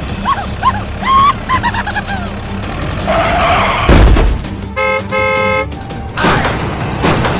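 A string of playful sound effects: quick chirping pitch glides, a loud thud about four seconds in, then two short horn toots, followed by whooshing noise.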